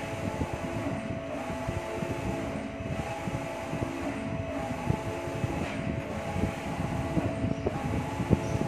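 Machinery running: a steady hum and rumble with a constant clatter of small knocks.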